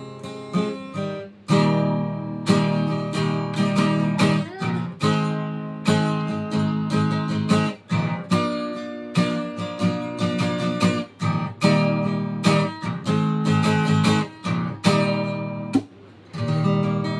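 Steel-string acoustic guitar strummed in chords, starting softly for about a second and a half, then in a steady rhythm of firm strokes with brief breaks at the chord changes.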